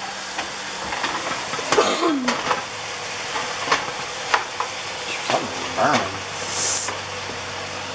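Sliced mushrooms sizzling in melted butter in a frying pan while being stirred with a slotted spatula, which knocks against the pan every second or so.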